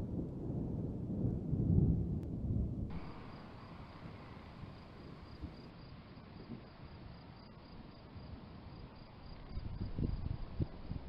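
Thunder rumbling low and loud for about the first three seconds, then falling away to a faint, even background with crickets chirping high and regularly. Low rumbles of thunder come back near the end.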